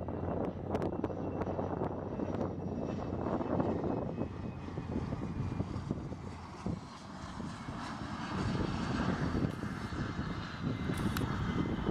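A twin-engine business jet on final approach, its turbofans running as a whine over a low rumble; the whine slowly falls in pitch as the jet passes by.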